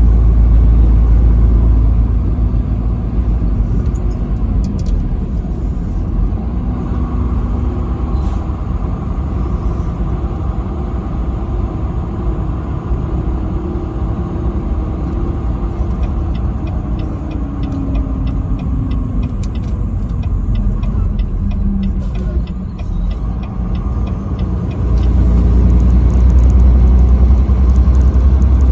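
Vehicle driving on a highway: steady engine and road rumble, heaviest at first and again near the end, with a run of quick light ticks about two-thirds through.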